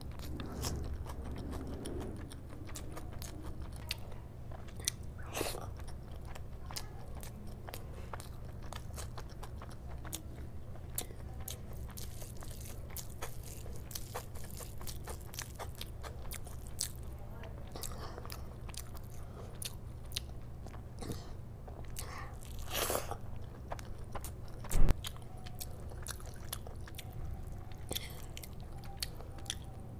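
Close-miked eating sounds: chewing and mouth sounds of rice and chicken curry eaten by hand, with many small clicks and crunches over a low steady hum. One sharp thump stands out about 25 seconds in.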